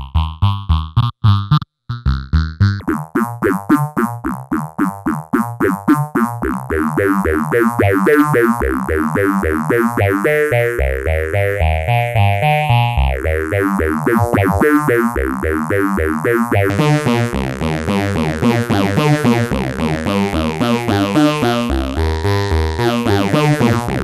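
Modular synthesizer sequence of fast, short repeated notes played through a Boss PH-2 Super Phaser converted to a Eurorack module, the phaser's sweep moving through the notes as its knobs are turned. It drops out briefly about a second in, then grows denser and fuller.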